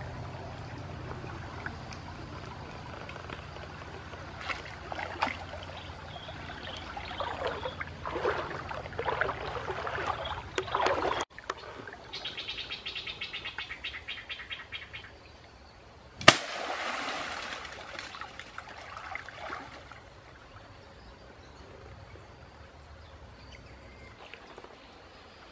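River water splashing and sloshing in irregular surges as a man wades and thrusts a long wooden spear into it, against the steady sound of the stream. Birds call in the background, and there is a sharp knock about sixteen seconds in.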